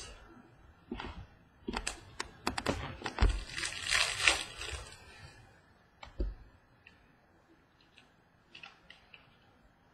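Stadium Club baseball cards handled and flipped through by hand: a run of sharp clicks and papery rustling in the first half, then only a few soft taps.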